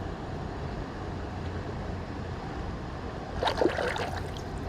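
Steady rush of river water with wind buffeting the microphone, and a brief louder splash-like sound about three and a half seconds in.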